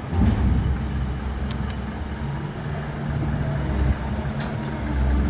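Heavy diesel engine running steadily at a low drone, with a couple of faint sharp clicks about a second and a half in; the engine gets louder near the end.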